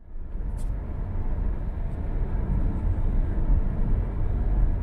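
Steady low road rumble inside a moving Nissan car's cabin: tyres running on a wet road.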